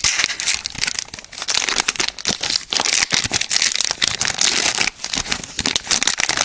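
Foil Pokémon booster-pack wrapper being torn open and crinkled by hand: a dense, continuous run of crackling rustles from a pack that is hard to open.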